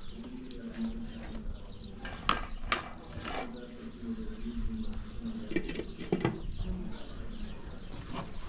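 Metal spoon and pot lid clinking and knocking against metal cooking pots, a few sharp clinks about two to three seconds in and again around six seconds, over a steady low hum.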